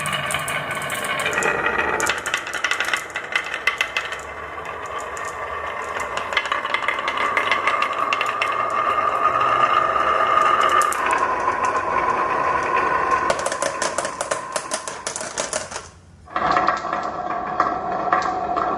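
Many marbles rolling and clacking along marble run tracks: a dense stream of clicks over a steady rolling hum. The sound drops out briefly about sixteen seconds in, then carries on.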